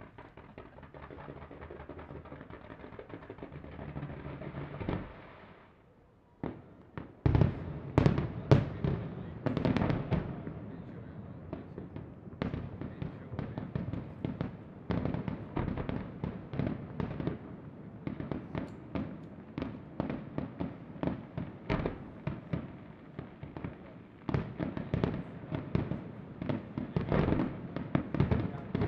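Aerial fireworks display: a steady hiss builds for about five seconds and stops sharply, then after a brief lull a rapid barrage of shell bursts and crackling takes over, loudest a couple of seconds after it starts.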